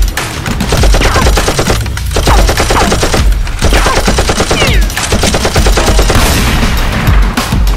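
Rapid automatic-gunfire sound effect: dense machine-gun rattle in several long bursts broken by short pauses.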